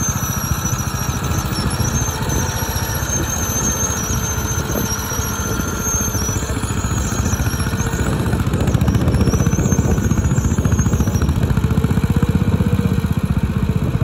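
Small vintage crawler tractor's engine running steadily with a fast, even beat as it pulls a single-furrow plough through the ground, getting louder about eight seconds in.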